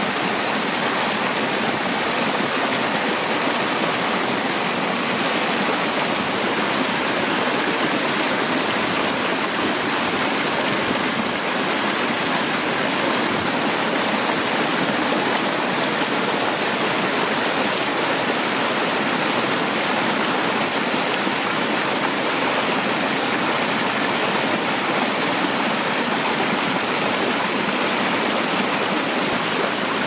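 Small creek waterfall cascading over rocks close by: a steady, unbroken rush of splashing, churning water.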